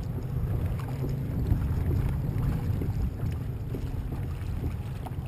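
Wind rumbling and buffeting on the microphone of a kayak-mounted camera, with small choppy waves lapping against the kayak's hull.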